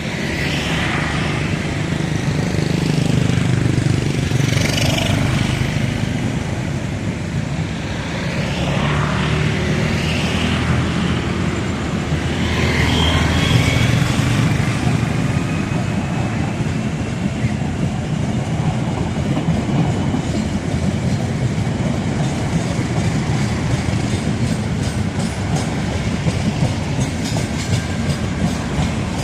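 Train moving past on the rails: a diesel locomotive's engine running with a heavy rumble, then wheels clicking rapidly over rail joints near the end.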